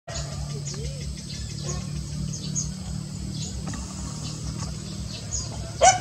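Lowland White-eyes giving short, high, thin chirps over a steady low hum. Near the end a dog suddenly starts barking loudly.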